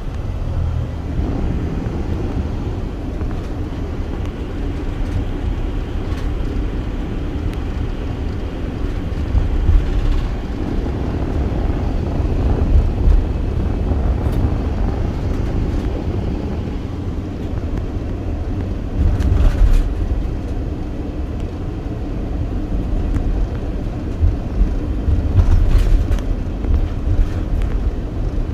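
Steady low rumble of a vehicle in motion, with a few brief rattles or knocks about ten, nineteen and twenty-five seconds in.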